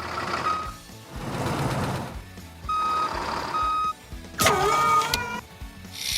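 Vehicle reversing beeps, a steady high electronic beep sounding on and off, over background music. About two-thirds of the way in comes a short sliding tone that dips and rises.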